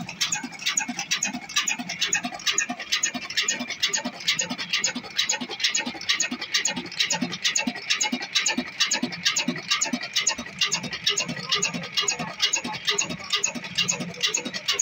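Old Ruston horizontal single-cylinder stationary engine running at a steady speed, its valve gear and fuel pump making an even, rapid clicking rhythm over low regular beats, with a steady high whine throughout.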